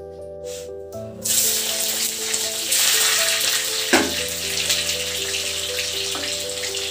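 Potato pieces frying in hot oil in an iron karahi, a steady sizzle that starts abruptly about a second in. A single sharp knock near the middle.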